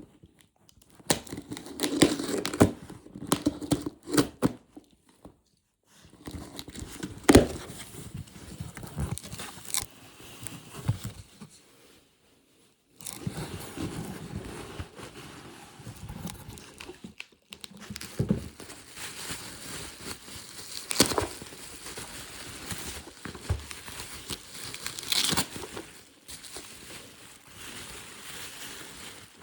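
A mailed package being torn open and unpacked: tearing and crinkling of the wrapping and packaging in irregular bursts, with a few sharp clicks and two brief gaps.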